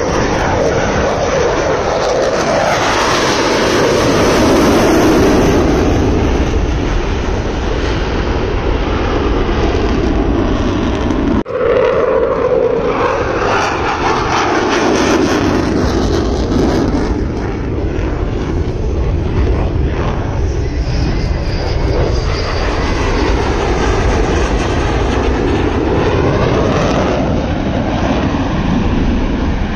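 Jet noise from a French Navy Rafale M's twin turbofan engines as the fighter makes low passes and banked turns overhead, the sound swelling and sweeping as it passes. The sound breaks off abruptly about a third of the way through and carries straight on.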